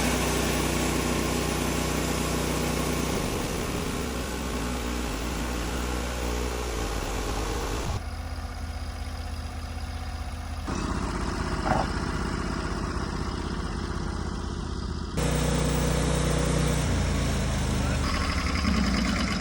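Portable band sawmill's engine running steadily while the blade saws a board from a poplar log. The sound changes abruptly a few times.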